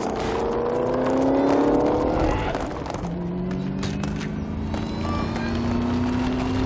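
Shelby Mustang GT500's V8 engine accelerating hard. The pitch rises, drops once about three seconds in as it shifts up a gear, then climbs again. Sharp clicks and knocks are scattered through it.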